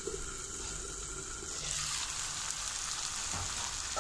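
Chopped onions, tomatoes and green chillies sizzling in oil in a covered kadai: a steady frying hiss as the vegetables cook down.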